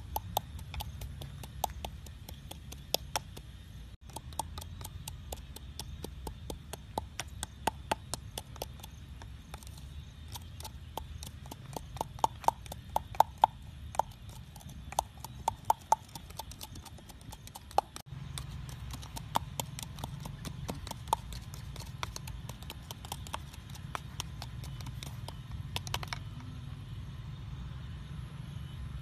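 Quick, irregular clicks and taps of utensils and food being handled during food preparation, hard objects knocking against a cup and a board, over a steady low hum. Partway through comes a faster, louder run of clicks with a slight ring.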